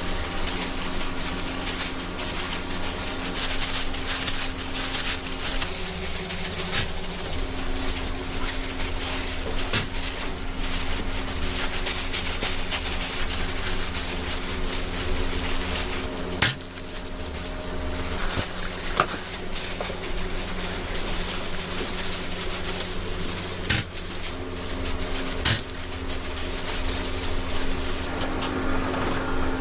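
Food-stall preparation sounds: occasional sharp knocks and clatters of utensils and cookware over a steady machine hum.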